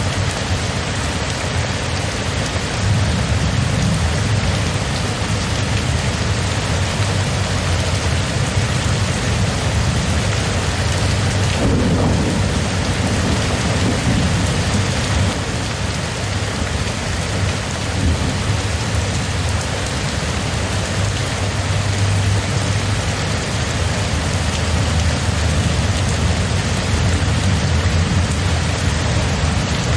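Thunderstorm: steady rain falling, with low thunder rumbling underneath and a louder rumble of thunder about twelve seconds in.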